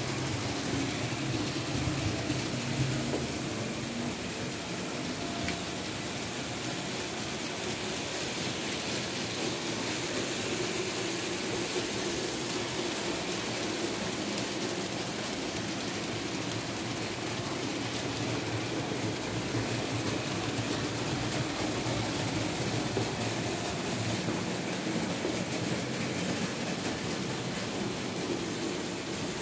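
Märklin H0 model of a BR 23 steam locomotive running along the layout track and pulling its wagons. Its electric motor makes a steady hum, mixed with the rolling noise of wheels on the rails.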